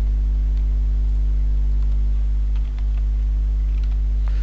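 Steady electrical mains hum on the recording, with a few faint computer keyboard key clicks in the second half as code is typed.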